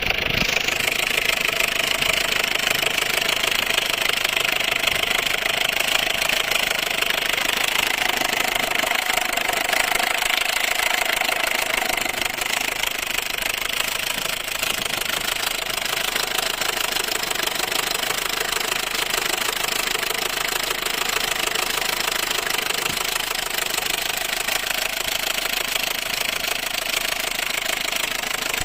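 Opel Astra H 1.4 16v four-cylinder petrol engine running with a steady clattering noise, a tractor-like sound the owner hears as a sign of an engine problem whose cause he does not know.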